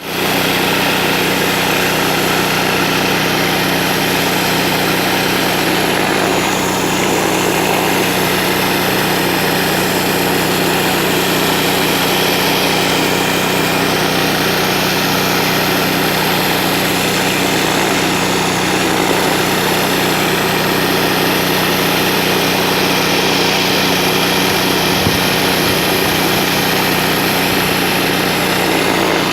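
Pressure washer running steadily with a surface cleaning disc spraying water onto a concrete driveway: a constant machine drone under a loud, even hiss of spray.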